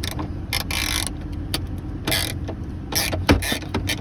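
A hand ratchet with a 7 mm socket clicking in several short bursts as it backs out small dash-trim screws. A steady low engine idle hums underneath.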